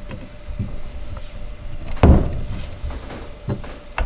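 Handling noises of white wooden changing-table rails and side pieces being fitted together by hand: light taps and knocks, one heavier thump about two seconds in, and a sharp click near the end.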